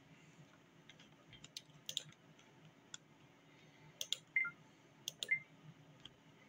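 Scattered light clicks and taps, quiet and irregular, with two short high beeps about four and five seconds in.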